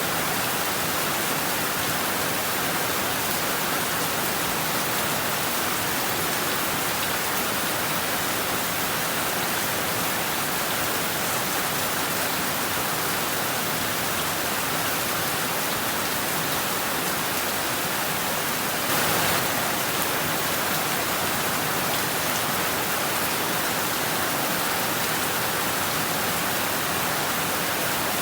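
Heavy rain falling steadily on rooftops and trees, an even hiss with one brief louder rush about two-thirds of the way in.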